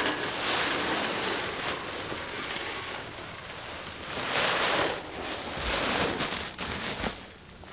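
Feed pouring from a sack into a wooden trough: a steady rushing hiss that swells in a couple of surges and dies away near the end.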